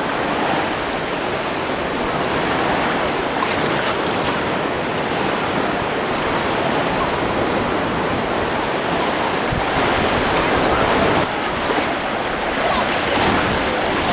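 Small sea waves washing in the shallows at the water's edge, a steady surf noise.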